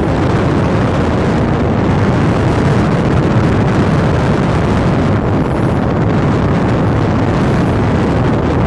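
Steady, loud rush of wind buffeting the microphone on a moving scooter, with the ride's engine and road noise mixed in beneath it.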